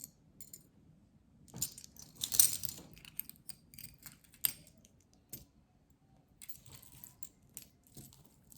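Costume jewelry jingling and clinking as pieces are handled and sorted, a cluster of clinks about two seconds in the loudest, then a sharp click and scattered lighter clinks.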